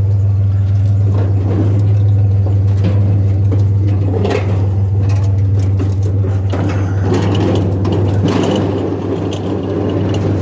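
Truck engine idling with a steady low hum, with scattered rattles and clanks over it.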